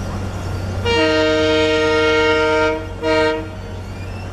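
Indian Railways locomotive horn sounding a chord: one long blast of about two seconds, then a short blast, over a steady low hum.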